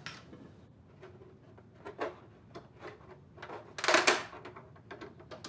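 Thin plastic cutlery tray being bent by hand along a knife score so that its edge strip snaps off: faint plastic clicks and handling, then a loud crack about four seconds in as the strip breaks away, followed by a few small clicks.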